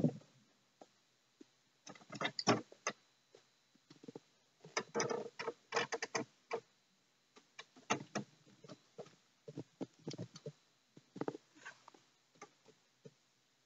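Kittens playing: irregular light taps, scrabbles and rustles of paws and small toys on a hard floor and a fabric play mat, in short flurries every second or two.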